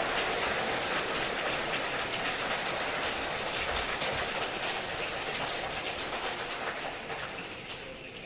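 Dense patter of many hands in a hall, a mass of small claps, snaps and rubs with no tune, dying away near the end.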